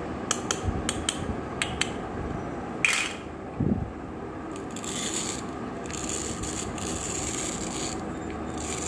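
Hard plastic toy fruit pieces being handled: a run of light clicks and taps, a sharp knock about three seconds in, then several seconds of scratchy rubbing.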